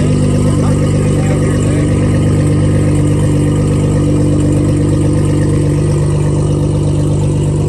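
Nissan GT-R's twin-turbo V6 running steadily near idle as the car creeps forward at walking pace, its exhaust a low, even note that sounds aggressive.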